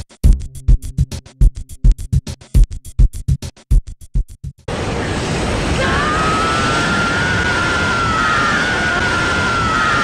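Music with a fast drumbeat, about five hits a second, cut off suddenly about four and a half seconds in by a loud, steady rushing noise. About a second later a wavering high whine joins it: a laser-beam sound effect.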